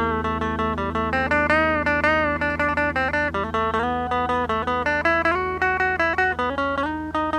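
Instrumental guitar music: single plucked notes picked in a steady run, about three or four a second, over a held low note. A few notes bend in pitch about two seconds in.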